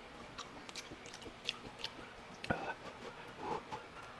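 Faint mouth sounds of a person eating grilled balut: sparse small clicks and wet smacks, with a sharper click about two and a half seconds in.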